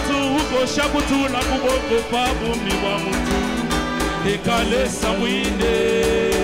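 Live band music with singing: lead and backing voices over a drum kit keeping a steady beat, with a held vocal note near the end.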